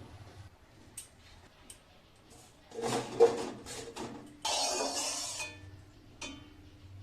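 Kitchen utensils and dishes clinking and knocking in a few separate strikes, with a cluster of knocks about three seconds in and a steady noisy stretch of about a second after the middle.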